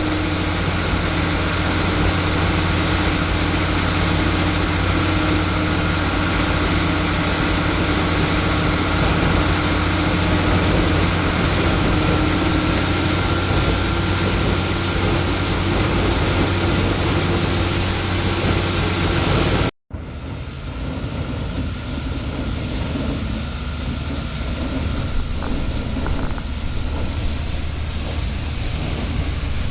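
Farm machinery engine running steadily with a high whine above it. The sound cuts off sharply about two-thirds of the way through, then resumes a little quieter.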